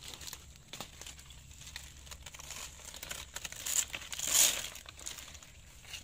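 Stiff pineapple leaves rustling and crackling as they brush and scrape past, with the loudest crackling about four seconds in.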